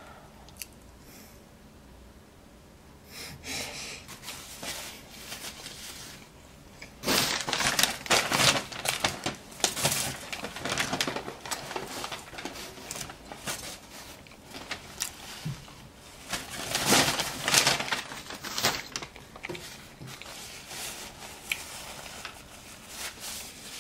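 Chewing a last bite of cheeseburger, then bursts of paper rustling and crinkling from napkins and wrapping. The loudest bursts come about seven to ten seconds in and again about sixteen to nineteen seconds in.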